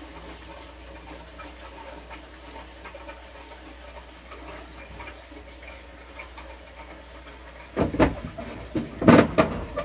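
Hot water tap running and spitting as air is pushed out of the tankless water heater's chambers and lines after the filter change. A steady hiss of flow, then loud, uneven noises near the end.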